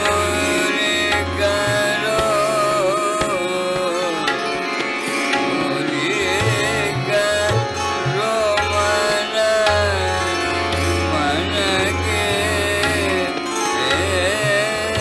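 Hindustani classical khayal in Raag Gunkeli: a male voice sings gliding, ornamented phrases over tabla and a steady drone.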